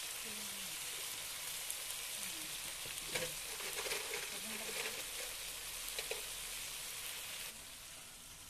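Diced tomatoes and onions sizzling steadily in hot oil in a pan, with a spatula scraping and stirring against the pan a few times. The sizzle drops a little quieter near the end.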